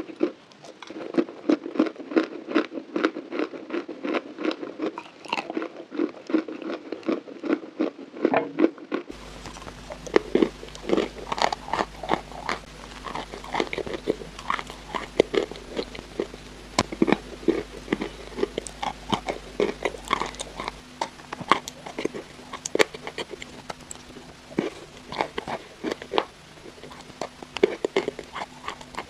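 Close-miked biting and chewing of crunchy chalk, a rapid run of crisp crunches. About nine seconds in the recording changes to a second eater, with a faint steady low hum behind the crunches.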